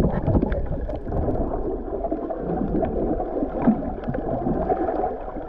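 Muffled gurgling and sloshing water with scattered faint clicks, its sound held low and dull.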